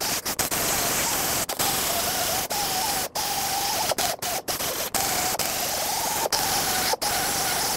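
Pneumatic die grinder spinning a small abrasive disc against the rusty steel flange of an exhaust pipe, a steady hissing whine with several brief breaks. The flange is being ground to bare metal so it can seal without a gasket.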